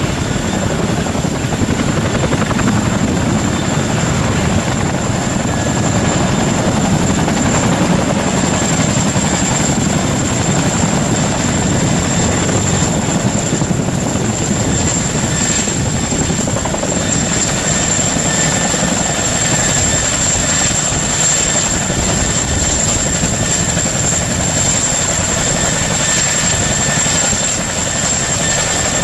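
Boeing CH-47 Chinook, a twin-engine tandem-rotor helicopter, running steadily and loudly: heavy rotor noise with a continuous high whine above it.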